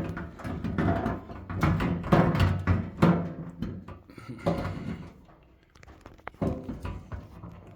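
Irregular clicks, knocks and rattles of a hex key on screws and a VFD enclosure cover being handled as the cover is taken off, over a low steady hum.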